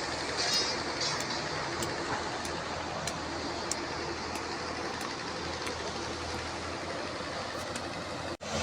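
Steady running noise of a heavy vehicle or machine, with faint regular ticks about twice a second. It cuts off abruptly just before the end.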